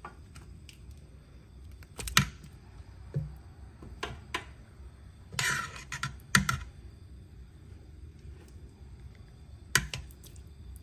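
Metal kitchen tongs clicking and knocking against a stainless steel Instant Pot insert as pieces of oxtail are set down into thick sauce. There are about half a dozen sharp knocks a second or two apart, with a brief scrape about five seconds in.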